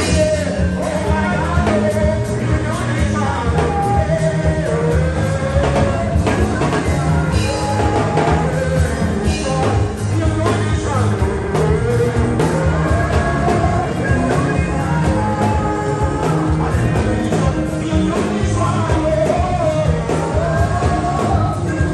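Live church band music: a drum kit and electric bass guitar keep a steady beat while a choir sings into microphones.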